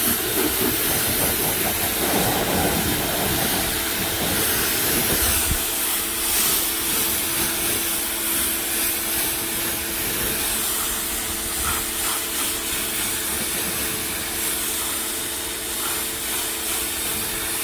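Greenworks 1.2 GPM electric pressure washer spraying, its jet of water hissing steadily against a van's wheel and body panels, with a steady hum underneath.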